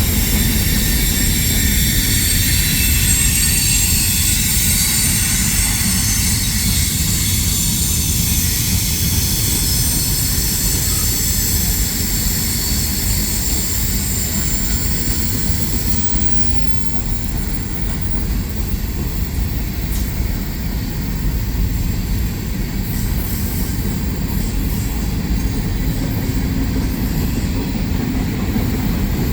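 Freight train rolling past with a steady loud rumble of cars on the rails. High-pitched wheel squeal is heard over it for the first ten seconds or so, then fades out.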